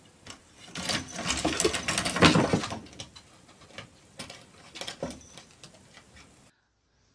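A cat's claws scrabbling and clattering on a wooden banister rail as it slips, a dense run of rapid clicks for about two seconds, followed by a few scattered knocks.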